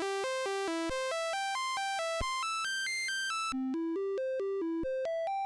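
SwinSID sound chip in a Commodore 64 playing the diagnostic cartridge's sound test, heard straight from the line output. It is a run of stepped synthesizer notes, about four a second, climbing and falling like a scale. About three and a half seconds in, the waveform changes from a bright, buzzy tone to a softer, plainer one.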